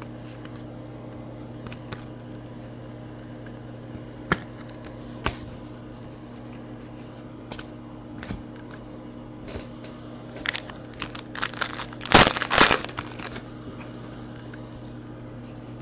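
Trading cards handled with a few light clicks and taps, then about ten seconds in a card pack's wrapper crinkles and tears open for around three seconds, loudest near the end; a steady low hum underneath.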